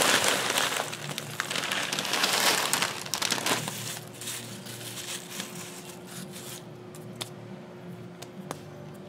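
A Doritos chip bag crinkling as crushed tortilla chips are poured out of it, loud for the first three seconds or so. The sound then drops to faint scattered clicks of chip crumbs being pressed and spread by hand in a foil pie pan.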